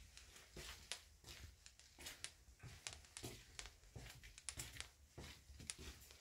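Near silence with faint, irregular clicks and rustles: footsteps on a tiled floor and handling noise from someone walking while filming.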